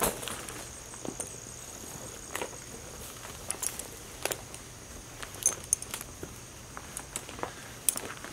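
Metal buckles and fittings of a horse's buggy harness clinking and knocking in scattered clicks as the harness is handled and laid onto the horse's back. A thin, steady, high insect tone runs behind.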